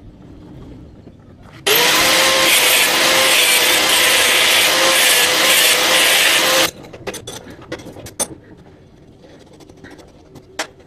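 Angle grinder with an abrasive disc cutting steel for about five seconds: a loud grinding noise over the motor's steady whine, starting and stopping abruptly. Afterwards a few light metal clicks from bolts and parts being handled.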